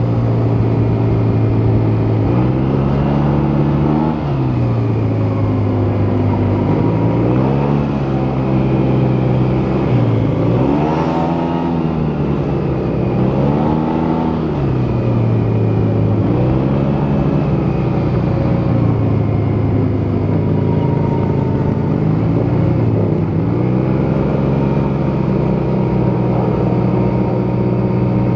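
Yamaha T-Max 530 maxi-scooter's parallel-twin engine through its stock exhaust, running while riding, the revs rising and falling repeatedly as it accelerates and backs off.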